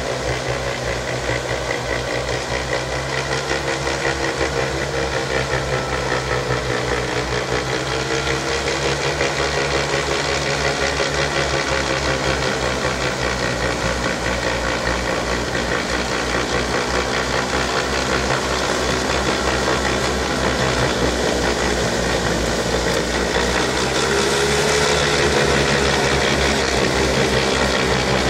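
Compact tractor engine running steadily under load, driving a rear-mounted snow blower that is clearing snow. The engine pitch wavers gently, and the sound grows a little louder about three-quarters of the way through.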